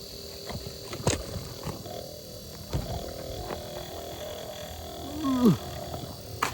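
Lake ice cracking under load: a couple of sharp knocks, then near the end a loud crack whose pitch drops quickly from high to low.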